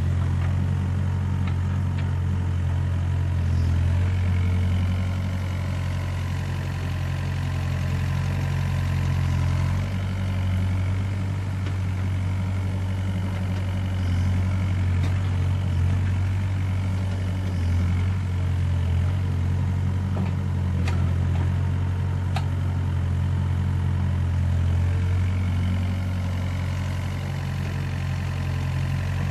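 Doosan DX55W wheeled excavator's diesel engine running steadily with a deep, even hum while the machine swings its boom and works a pile of soil.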